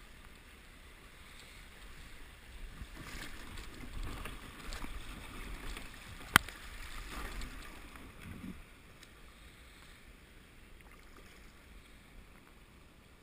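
Water splashing and rushing around a kayak's hull as it is paddled through a shallow riffle in a creek, louder for a few seconds in the middle and then settling. One sharp knock a little past the middle.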